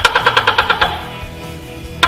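A gecko chirping: a quick, even run of about ten sharp chirps in the first second, trailing off, over a steady low hum.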